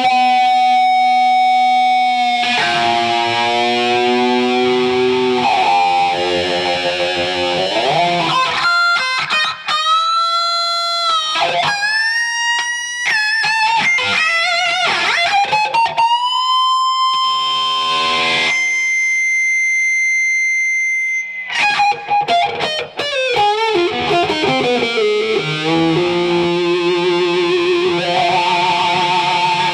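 Electric guitar through an EHX East River Drive overdrive, split to one clean and one distorted amp, playing shrill shrieking notes and howls, with long sustained notes and sliding pitch bends. Around the middle come short choppy notes, then a single steady high tone held for about three seconds, typical of guitar feedback.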